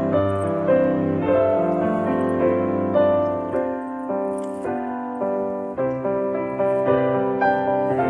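Background piano music with held notes starting one after another.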